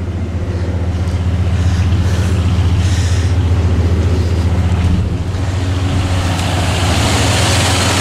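Dodge Ram 1500 pickup's engine idling steadily with the air conditioning on maximum: an even, low hum, with a rising hiss near the end.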